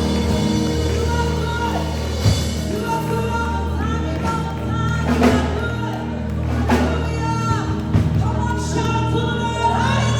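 Live worship music: voices singing sustained, gliding lines over a band with a steady bass and a few sharp drum hits.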